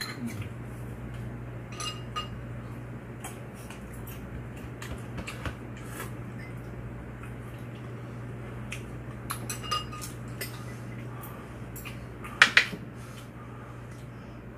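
Eating utensils clinking against dishes in scattered light taps, with two louder clinks near the end, over a steady low hum.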